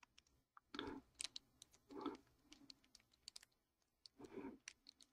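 Faint, scattered clicks and ticks of tiny metal parts being handled, with a few short soft rustles: the little air pins being worked out of a rebuildable tank atomizer's deck.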